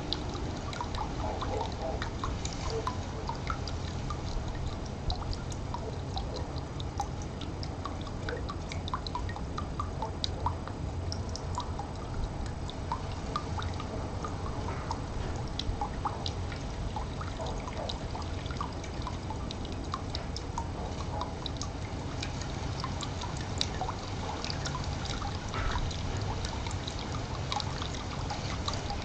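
Small stream running water, trickling steadily with many quick little drips and plinks.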